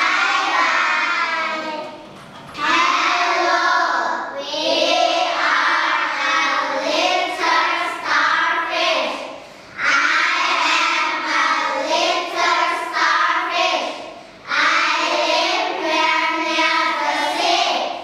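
A group of young children singing a song together in unison, line by line, with short pauses between phrases.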